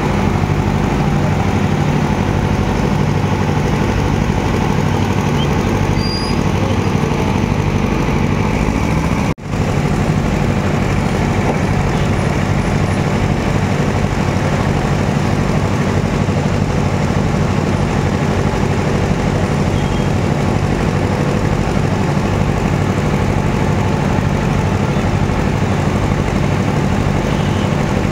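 Motor vehicle engine running steadily at idle, with a brief dropout about nine seconds in.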